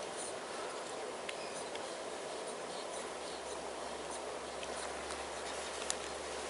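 Faint scratching and light clicking of pet ferrets moving about, over a steady background hiss, with one sharper click a little before the end.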